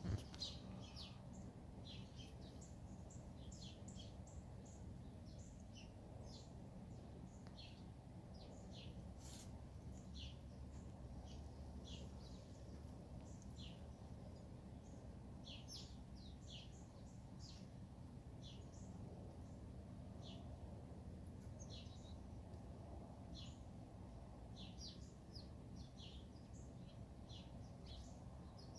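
Songbirds chirping faintly: short, high chirps every second or so, sometimes in quick little runs, over a low steady background rumble.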